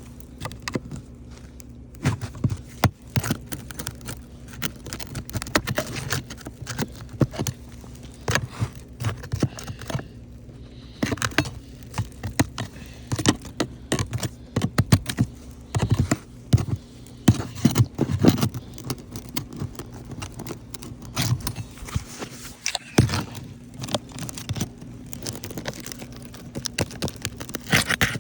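Irregular clicking, knocking and scraping of hands and a tool prying at brittle roof shingles to remove them.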